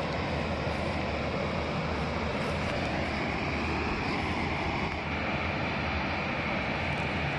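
A steady rushing noise, even and unbroken, with no distinct knocks or splashes.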